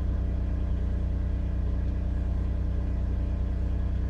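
Cummins Onan 2800-watt liquid-propane RV generator running steadily under load, a low hum heard from inside the shut camper van.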